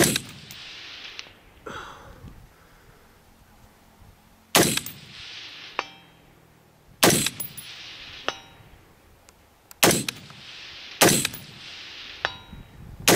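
Five unsuppressed 5.56mm AR-15 rifle shots, 55-grain FMJ, spaced two to four seconds apart, with a sixth at the very end. About a second after each shot comes a faint ping of the bullet striking a steel target 350 yards downrange.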